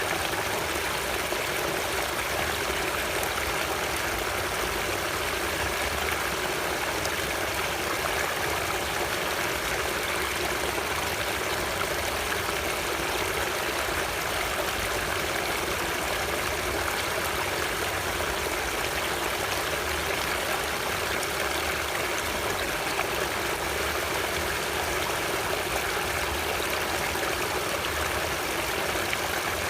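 Stream of running water flowing steadily, an even rushing without splashes or pauses.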